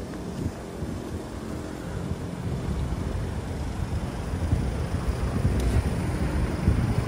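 City street noise: a low, fluttering rumble of traffic and wind buffeting the microphone, growing louder over the second half.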